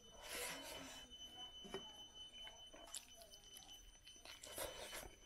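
Faint close-up eating sounds: a person chewing and taking handfuls of rice and chicken into the mouth, with a few soft clicks and smacks.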